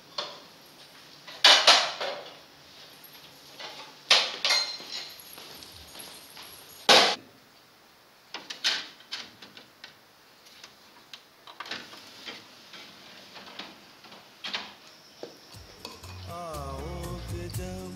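Dishes and utensils clinking and clattering as they are handled, in separate sharp strikes a few seconds apart, the loudest about 1.5, 4 and 7 seconds in. Near the end, music begins.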